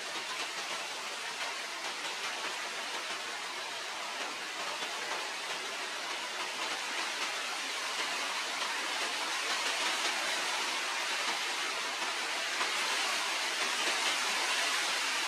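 Steady, even hiss of background noise with no distinct events or animal calls, growing slightly louder near the end.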